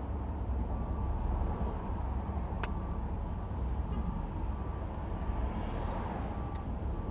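Steady low rumble of street traffic and idling cars, with a faint electronic beep repeating about twice a second and a sharp click about two and a half seconds in.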